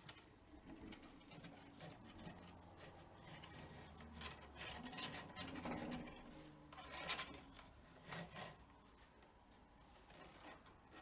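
A tabla's leather strap (badhi) being pulled through the skin's braid as the drum is laced: a faint run of irregular rubbing and rasping strokes, a few louder ones around the middle.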